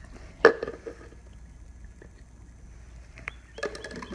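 Handling noise on a hard floor: one sharp knock about half a second in, then a quick cluster of light clicks and rattles near the end.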